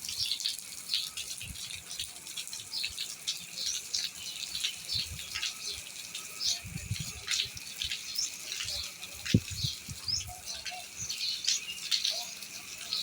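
Many small birds chirping in quick, overlapping bursts over a steady high hiss. A few soft low thumps come in between, one sharper about nine seconds in.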